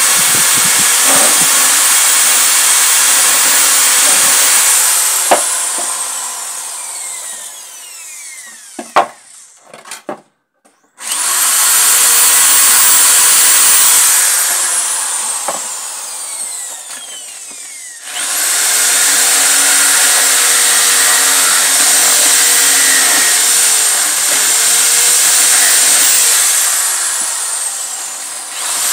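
Corded electric drill boring holes through a wooden plank, run in three bursts. Each time the trigger is let go the motor spins down with a falling whine. A few knocks come in the short pause between the first two bursts.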